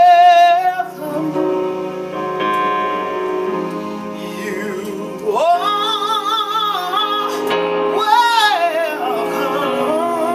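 A woman singing gospel, holding long notes with a wide vibrato over sustained instrumental accompaniment.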